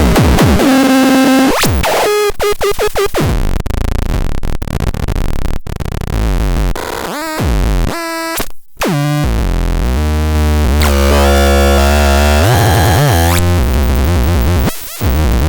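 Vapetron CCS 7 electronic synthesizer sounds: a string of harsh, changing buzzy tones, clicks and hiss, with sweeping pitches partway through. A loud deep bass drone sits under the dense tones in the second half.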